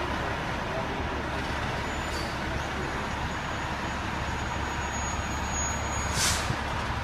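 Fire truck's engine running steadily as the aerial ladder truck creeps slowly through a tight turn, with a brief hiss of air about six seconds in.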